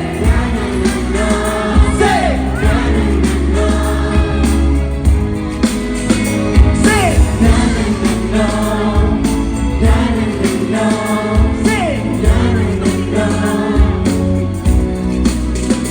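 Thai pop song playing: singing over a steady beat and bass line, with a few short falling swoops.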